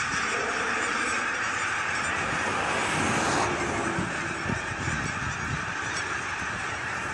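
A huge flock of thousands of geese calling all at once, a dense unbroken chorus of honking.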